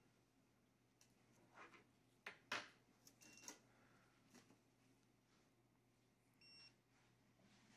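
Dental LED curing light giving two short high beeps about three seconds apart while it light-cures the retainer adhesive. A few faint clicks and knocks come in between, the sharpest about two and a half seconds in and the loudest thing heard.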